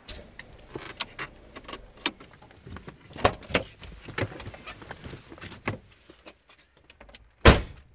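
Keys jangling among scattered clicks and knocks, with one loud door thud near the end.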